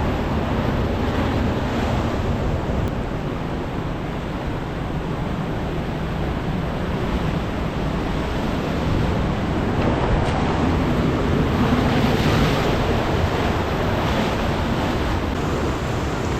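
Ocean surf washing against coastal rocks, a continuous rushing that swells louder about two-thirds of the way through, with wind buffeting the microphone.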